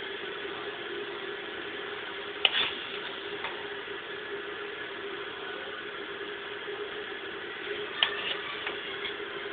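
The magnetic-switch-operated nose bay doors and nose gear of an RC Canadair CL-415 model clicking as they work. There is one sharp click about two and a half seconds in and another near eight seconds, over a steady electric hum.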